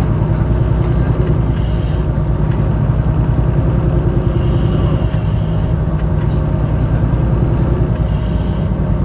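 City bus engine and road noise heard from inside the cabin: a steady low drone as the bus drives.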